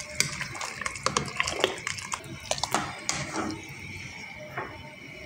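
Metal spoon stirring hot soup in a steel pot: scattered clinks and scrapes against the pot, with a few short sliding squeaks.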